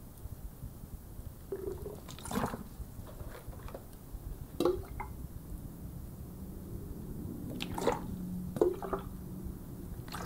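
Water poured from a plastic bottle onto potted succulents, dripping onto the soil, with a few sharp crinkles and taps as the bottle and a small plastic pot are handled.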